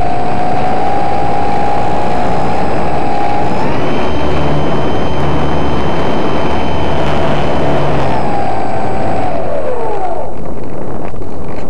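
Radio-controlled model plane's motor whining over a steady rush of wind noise. The whine steps up in pitch about four seconds in, holds, then glides down and fades out near the end, leaving just the wind.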